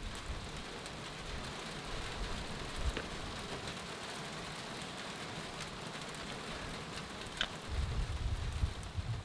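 Steady light rain hissing, with a few faint ticks of single drops and a low rumble near the end.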